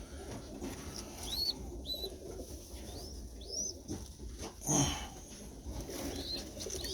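Pigeons in a loft: several short, high, rising peeps from young pigeons in a nest box, with a brief louder rustle about five seconds in.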